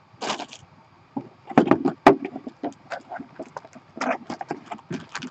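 Packaging being handled: irregular crinkling, rustling and light clicks of plastic and cardboard as model kits and decal sheets are moved about.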